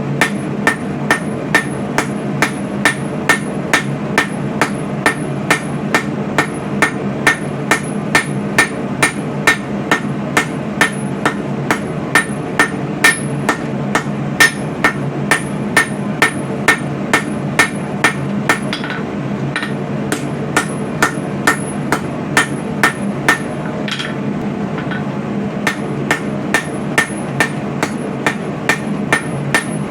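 A 3-pound blacksmith's hammer striking hot coil-spring steel on an anvil at an even pace of about two blows a second, flattening and widening the knife blade, with two short pauses partway through. A steady low hum runs underneath.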